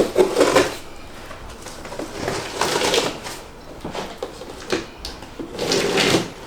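Large cardboard shipping box being opened by hand: cardboard flaps and packing scraping and rustling in irregular bursts.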